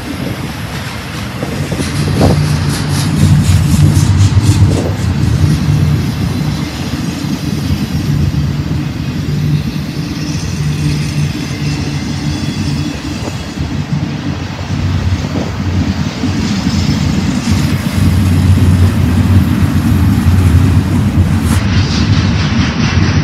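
Double-stack intermodal freight train rolling past close by: a steady, loud low rumble of steel wheels on rail, with a run of rapid clicks about two to five seconds in.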